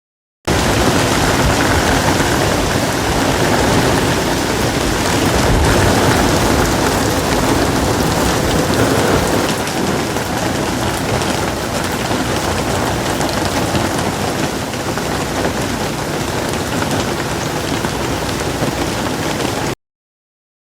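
Heavy rain, a loud steady hiss with a rumbling low end, starting and stopping abruptly.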